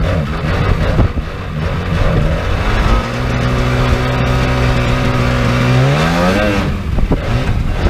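Sea-Doo 787 two-stroke twin-cylinder engine driving a jet boat under way. It runs unevenly at first, then holds steady revs, and about six seconds in the revs rise sharply before dropping back.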